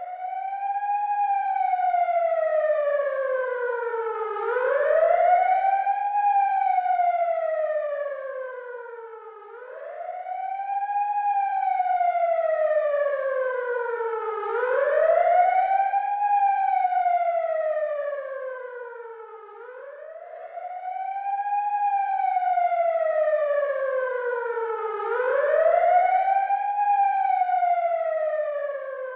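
Ambulance siren sounding a slow wail: each cycle the pitch climbs quickly for about a second and a half, then sinks slowly for about three seconds, repeating roughly every five seconds and swelling louder at the top of each rise.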